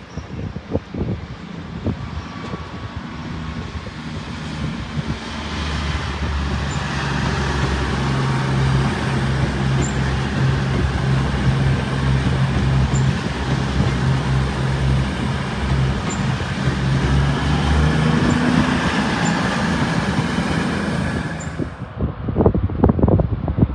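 A train running past close by: the noise builds over the first few seconds, then holds steady with a low hum and a broad rushing hiss, and cuts off abruptly near the end.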